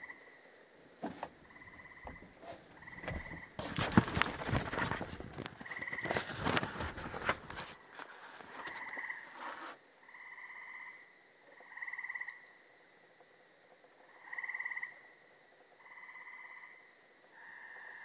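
Frogs calling in the night: a chorus of short repeated calls, each under a second long, coming every second or two. About four seconds in, loud rustling and knocking covers them for several seconds.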